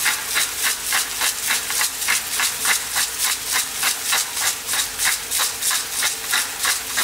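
Pepper mill grinding black pepper with quick repeated twists: a rhythmic gritty crunching, about four strokes a second.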